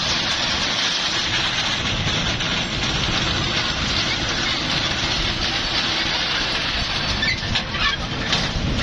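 A kids' ride-on train running, giving a steady mechanical noise with no clear pitch, and faint voices near the end.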